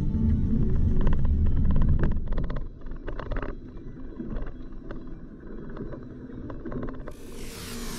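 Low road and engine rumble heard from inside a moving car, dropping away about two seconds in. A quieter stretch with faint clicks follows, and near the end a whoosh swells up.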